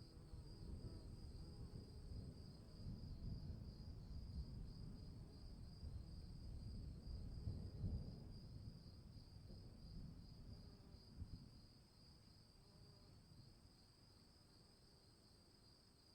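Distant thunder rumbling low, swelling and then dying away about twelve seconds in, over a steady high chirring that runs throughout.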